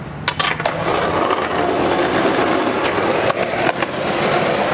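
Skateboard wheels rolling on concrete, a steady rolling rumble, with a few sharp clacks of the board near the start and again about three and a half seconds in.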